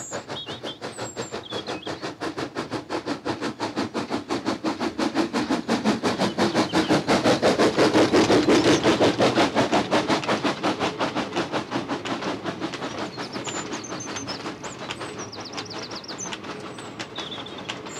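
Colliery steam locomotive working past with a train of empty wagons, its rapid, even exhaust beats growing louder to a peak about eight seconds in and then fading away. Faint bird chirps near the end.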